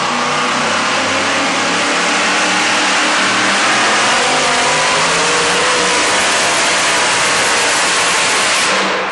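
Two-wheel-drive pulling truck's engine running loud and steady at high revs as it drags a weight-transfer sled, easing off near the end.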